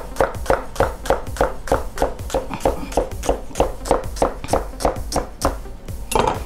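Chef's knife slicing a leek on a wooden cutting board: an even run of knife strikes against the board, about three a second. The cutting stops shortly before the end with one last knock.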